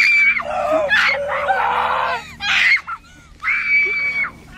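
Young person's acted screaming, as if in pain from being bitten in a play fight: a series of loud, high screams, the last a long held one near the end.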